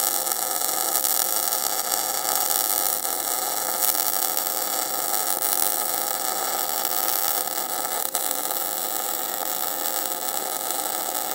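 MIG welding arc burning steadily on steel plate, a continuous hiss with no breaks, the wire feeding into the weld pool while the bead is laid along a T-joint. The settings have been tuned by ear until the arc sounded right.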